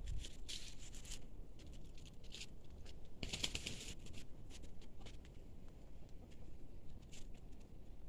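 Dry leaves and twigs rustling and crackling, strongest in two short bursts about half a second and three seconds in, over a low steady rumble.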